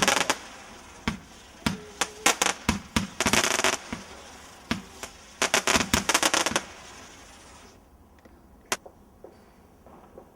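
Fireworks going off in rapid volleys of sharp bangs and crackles, coming in clusters, then dying away after about seven seconds with one last crack near the end.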